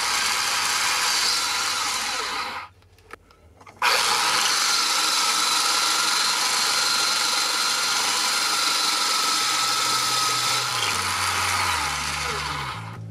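A homemade 12 V DC drill press running and drilling down into a clamped workpiece: a steady motor whine over the rough noise of the bit cutting. The sound cuts out abruptly for about a second some three seconds in, then starts again at full level.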